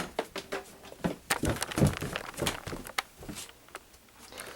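Footsteps: a run of irregular thumps and clicks, a few every second.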